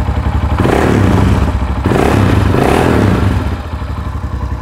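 A 2005 Honda CRF230F's air-cooled single-cylinder four-stroke engine running just after a cold start. It is revved twice with the throttle, then settles back to idle near the end, running smoothly with no clattering.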